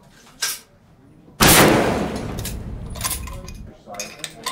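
A single very loud shot from a muzzle-braked Savage 110 .338 Lapua Magnum bolt-action rifle about a second and a half in, with a long echoing tail under the range's roof. It is followed by a few metallic clicks of the bolt being worked.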